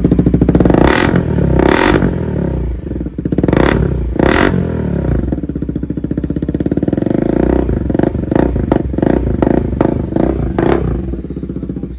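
Bajaj Pulsar NS400's single-cylinder engine running very loud through an aftermarket Austin Racing free-flow slip-on exhaust, its catalytic converter removed. The engine is revved in sharp blips with idle between them, with a quick run of blips near the end before it is switched off.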